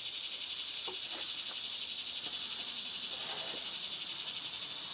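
Insects chirping in a steady, high, rapidly pulsing drone, with a few faint knocks from a bicycle frame being handled and turned over.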